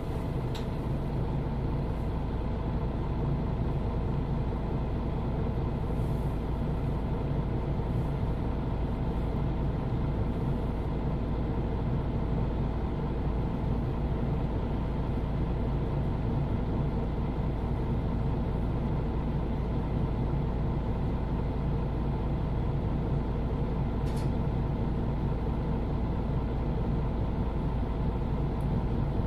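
MAN Lions City Euro 6 city bus's diesel engine idling steadily while the bus stands, heard from inside the passenger cabin.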